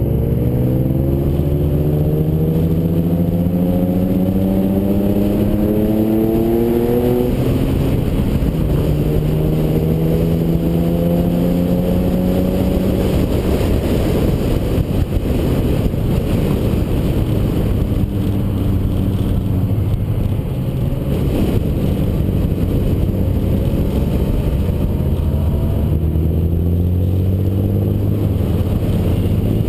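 Ferrari engine accelerating up through the gears: the note rises for about seven seconds, drops at a shift and climbs again, then runs steadier under rushing road and wind noise before climbing once more near the end.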